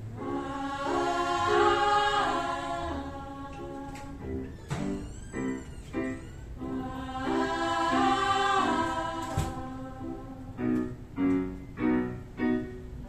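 A group of women singing a vocal warm-up exercise together: a held phrase, then a run of short, detached notes, with the pattern sung twice.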